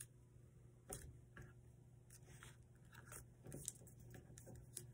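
Faint rustling and soft crinkling of a sheet of paper being handled and creased by hand while folding an origami plane, with a few light ticks, one a little louder about a second in.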